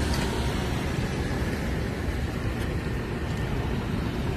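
Steady street traffic noise: a continuous low rumble with no distinct events.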